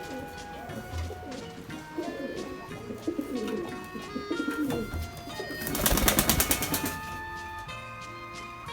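Nikolaev pigeons cooing, low and wavering, over background music. About six seconds in comes a loud, rapid flutter lasting about a second.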